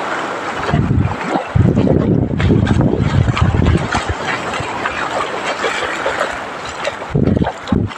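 Wind buffeting the microphone in gusts, over the wash of small waves running up a sandy beach.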